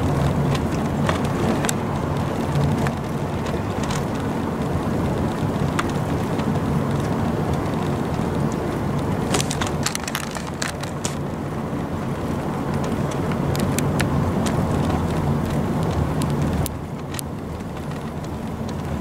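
Steady road and engine noise inside a car cabin while driving on the highway, with scattered light ticks. The noise drops a little near the end.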